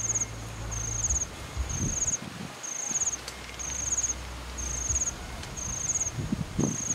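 An insect calling with a high, fast-pulsed chirp about once a second, over a low rumble that comes and goes. A couple of brief rustles of tent fabric being handled, around two seconds in and near the end.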